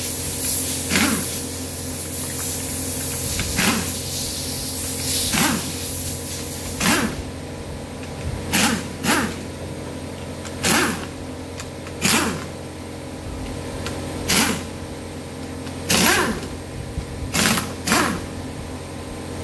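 Air-powered wrench running in about a dozen short bursts, one to two seconds apart, spinning bolts out of the top of an engine being stripped down. A steady hiss of air runs under the first several seconds.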